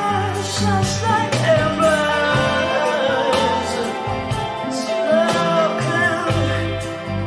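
Rock/folk song with a singing voice over guitar, bass and drums.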